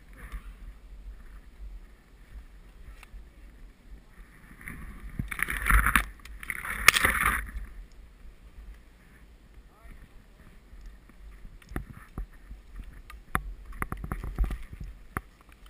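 Skis sliding and swishing through snow, with two louder swishes about six and seven seconds in and scattered sharp clicks near the end.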